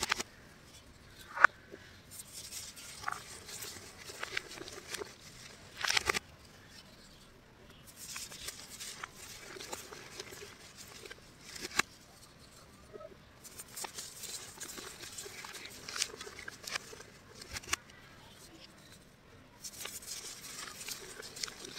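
Hands squeezing and crumbling handfuls of loose white powder, making soft crunching and crackling with a puff of powder now and then. There are a few sharper cracks, the loudest about a second and a half in and a denser burst around six seconds in.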